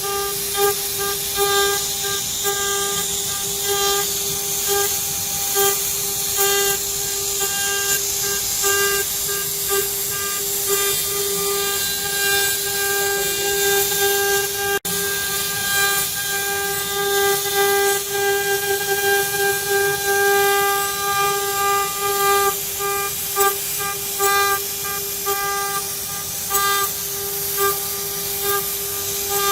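CNC router spindle whining at a steady pitch while milling aluminium, over a constant high hiss of cutting. The sound drops out for an instant about halfway.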